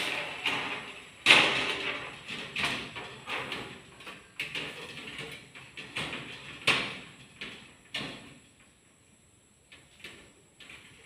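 Aluminium sliding window sashes with bronze glass being slid back and forth along their track, each slide a short rolling scrape that ends in a knock against the frame. About six slides, the loudest about a second in, then a quiet pause near the end.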